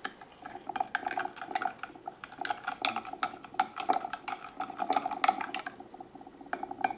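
Spoon stirring instant coffee and sugar in a metal cooking pot: rapid clinks and scrapes with the pot ringing, for about five seconds, then a few single clinks near the end.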